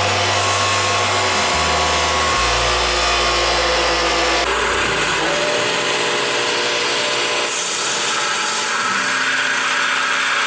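Angle grinder with a grinding disc grinding steel, a steady continuous grind, cleaning the surfaces of a pattern-welded steel billet before restacking.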